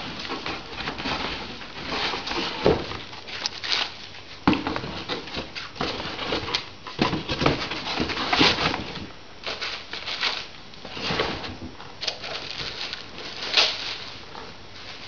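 Packaging being handled by hand as a car amplifier is unpacked: irregular rustling and crinkling with a few sharp knocks.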